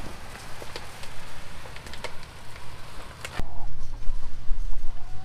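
Chickens clucking. For the first three seconds or so, a steady hiss of feed pellets pouring from a sack into a metal trough; after that, wind rumbles on the microphone.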